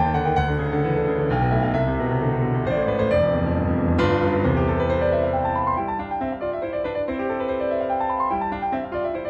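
Background piano music: struck notes, with quick rising and falling runs of notes in the second half.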